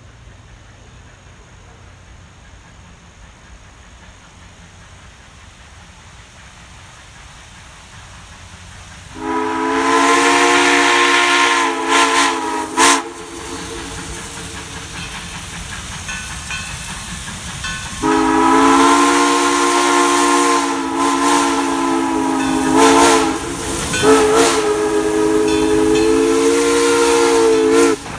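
Great Smoky Mountains Railroad No. 1702, a USATC S160 2-8-0 steam locomotive, blowing its chime steam whistle as it approaches: a blast of several notes together about nine seconds in, then a longer one from about eighteen seconds with a couple of brief breaks. Beneath it the rumble of the working locomotive and its wheels on the rails grows louder as it comes up.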